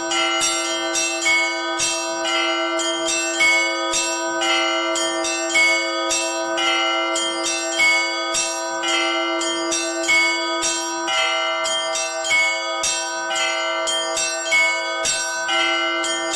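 Orthodox church bells rung by a bell ringer: a quick, steady rhythm of small bells with a louder stroke about once a second, over the lasting ring of a lower bell.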